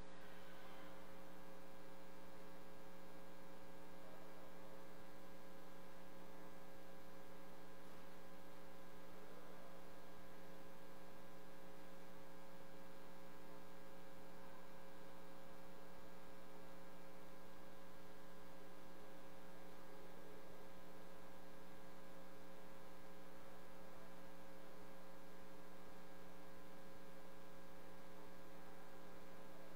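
Steady electrical mains hum made of several fixed pitches stacked together, over a faint even hiss.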